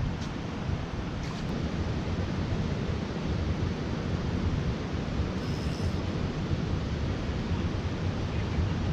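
Wind buffeting the microphone outdoors: a steady, rough low rumble with hiss above it and no clear events.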